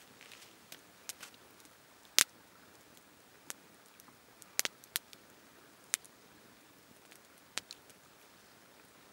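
Wood campfire crackling: sharp, scattered pops and snaps at irregular moments, the loudest about two seconds in, over a faint steady hiss.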